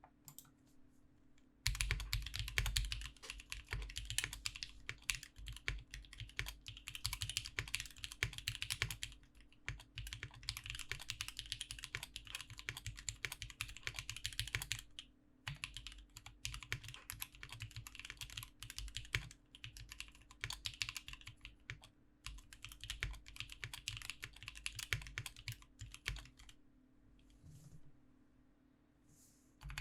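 Typing on an Ambition67 gasket-mount acrylic-stack mechanical keyboard with lubed and filmed Alpaca linear switches on an FR4 plate: fast, continuous key presses. The typing starts about two seconds in, breaks off briefly around the middle, and stops a few seconds before the end, over a faint steady hum.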